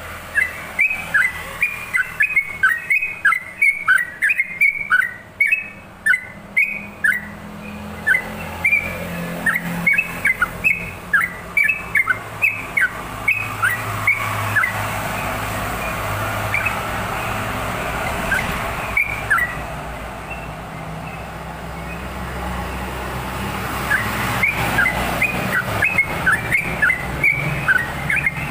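Yellow-vented bulbul (trucukan) singing long rapid runs of short, clear, falling notes, in bursts with a pause a little after seven seconds in and a longer lull around twenty seconds in. A steady low background rumble runs underneath.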